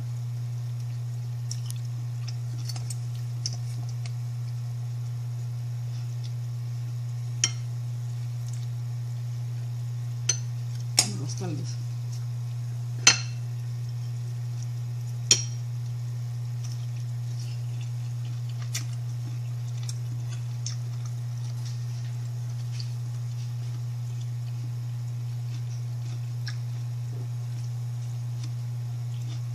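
Crockery clinking a few times as food is eaten by hand from a small bowl, the loudest clink near the middle, over a steady low hum.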